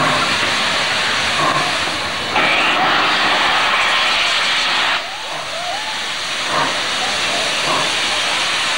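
Steam locomotive 141R 1244 venting steam from its cylinder drain cocks, a loud steady hiss. The hiss grows louder about two and a half seconds in and drops back at about five seconds.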